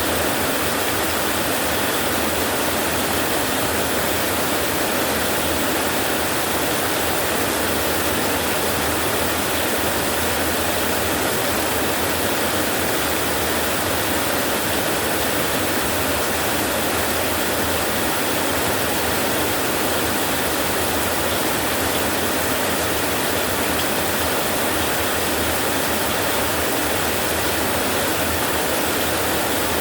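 Heavy rain falling steadily on a metal roof, an even, unbroken hiss of drops.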